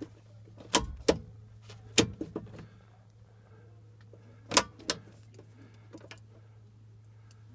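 A few sharp clicks and knocks, about five in the first five seconds, over a steady low hum.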